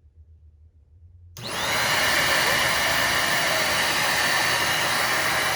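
Deerma DX115C corded stick vacuum cleaner switched on about a second and a half in. Its motor spins up within a moment to a steady, loud whirring with a thin high whine.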